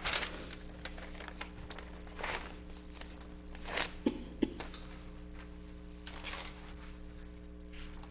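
Paper rustling as sheets are handled and pages turned, in several short swishes, with two sharp knocks close together about four seconds in, over a steady electrical hum.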